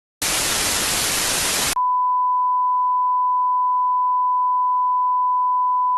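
A burst of broadcast static lasting about a second and a half, cut straight into a steady, single-pitched test-tone beep that holds unchanged for over four seconds and then stops abruptly.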